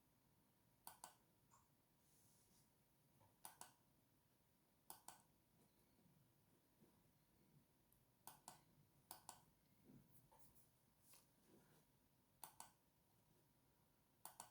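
Quiet, scattered sharp clicks, mostly in quick pairs, about seven pairs spaced a second or more apart, with near silence between them.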